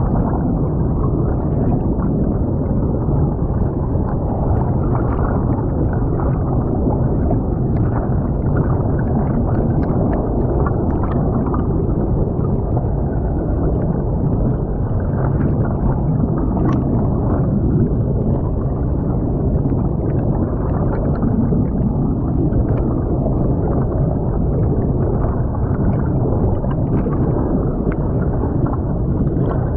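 Creek water heard through an underwater camera's microphone: a steady, muffled rush and gurgle of the current, with a few faint ticks.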